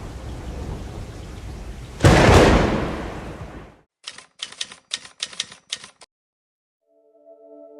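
Rain with a loud thunderclap about two seconds in that rolls away and fades out, followed by a run of about seven sharp typewriter-like key clicks over two seconds. A soft, sustained ambient music chord begins near the end.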